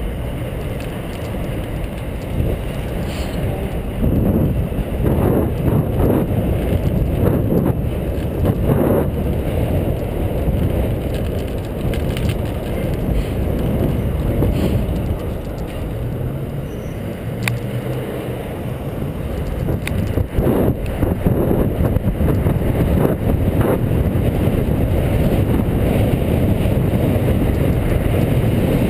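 Wind noise rumbling over the microphone of a camera on a moving bicycle, with street traffic mixed in and a few light knocks. The rumble gets louder about two-thirds of the way through, as the ride reaches the street.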